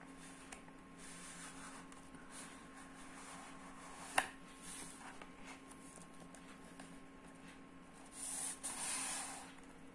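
Cardboard smartphone box being unpacked: the inner tray slides out of its sleeve with a soft scraping and a sharp click about four seconds in. Near the end there is a louder rustle as the phone is lifted out of its tray.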